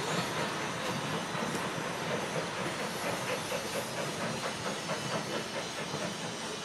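Steam train running away along the line, with hissing and a regular beat of about four a second that slowly fades.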